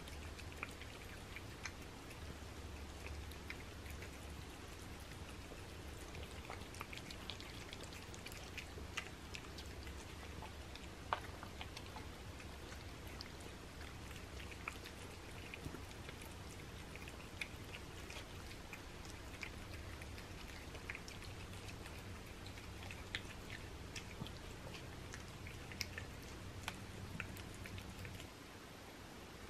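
Three cats eating wet food off paper plates: faint, irregular wet smacking and licking clicks, with one sharper click about eleven seconds in, over a low steady hum.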